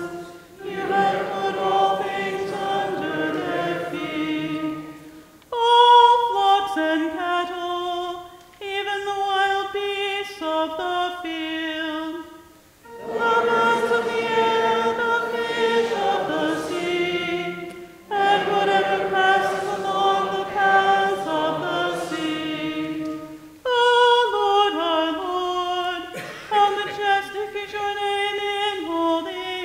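Church congregation singing a psalm chant unaccompanied, in short sung phrases with brief pauses between them.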